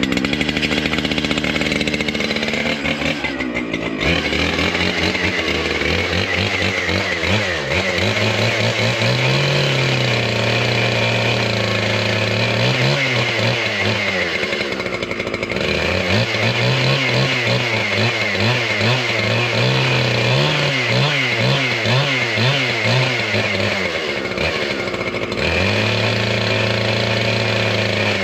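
Large two-stroke chainsaw running just after being started on choke, its engine speed rising and falling several times as it warms up.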